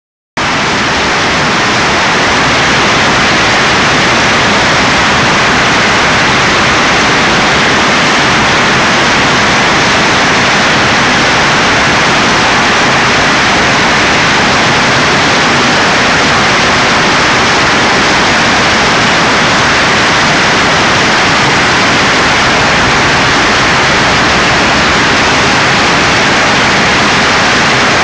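Loud, steady plastic bottle recycling machinery noise: a dense, even hiss with no rhythm or clear tone, coming in at the very start and holding level.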